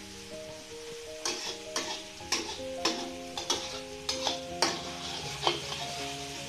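Blended dried chilies sizzling in hot oil in a wok, with a metal spatula scraping and clinking against the wok about a dozen times from about a second in until near the end as the paste is stirred and fried toward crisp. A light background melody plays throughout.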